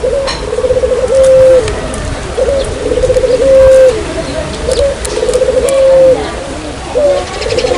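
Puter dove (Barbary dove) cooing as a lure call: a repeated phrase of a quick stuttering run of notes ending in one long held note, about every two seconds, three times, with a fourth beginning near the end.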